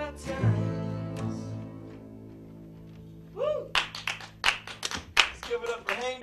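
Music ends on a held chord that fades out, then about three and a half seconds in, clapping and voices start.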